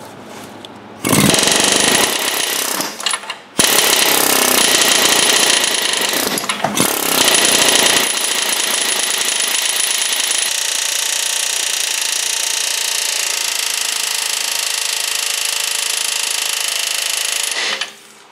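Ingersoll Rand 118MAXK long-barrel pneumatic air hammer with a flat chisel, rattling rapidly against a strut top that has rusted solid to its mounting plate, to break it free. It starts about a second in, stops briefly twice, then runs steadily until it stops near the end.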